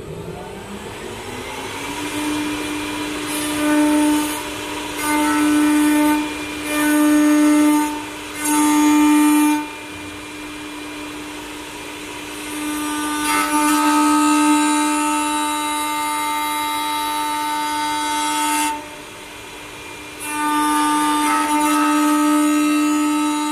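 CNC wood turning lathe winding up with a rising whine over the first two seconds, then running at a steady pitch. Louder stretches of cutting come over it: four short passes of about a second each, then a longer one of about six seconds, a short break, and another pass near the end.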